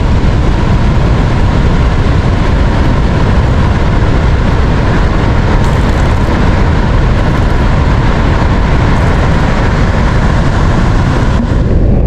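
Loud, steady roar of Victoria Falls, the Zambezi's water plunging into the gorge. The upper hiss drops away near the end.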